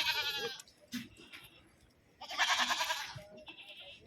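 Goats bleating: a quavering bleat at the start, a longer, louder one a little past two seconds in, and a fainter call after it.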